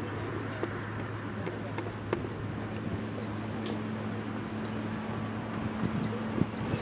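A steady low machine hum, with a second, higher hum joining about two and a half seconds in, and a few faint clicks.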